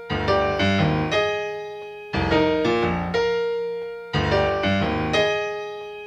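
Piano playing the song's introduction with no voice: a phrase of chords and bass notes struck about every two seconds, each phrase decaying before the next begins.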